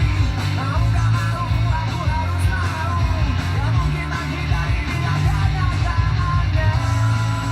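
Rock song with electric guitar, bass and a singing voice, playing back from a cassette on a Yamaha KX-390 stereo cassette deck. Held guitar chords come in near the end.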